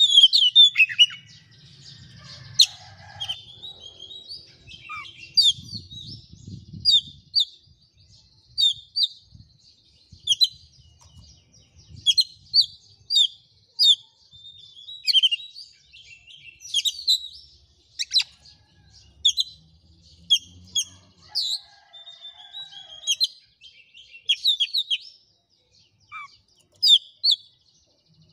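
Oriental magpie-robin (kacer) singing: a string of short, sharp whistled notes and chirps, a phrase every second or so, after a few seconds of quiet near the start.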